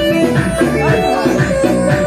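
Turkish halay dance music with a steady, repeating beat, a plucked string instrument carrying the melody with a few bent notes.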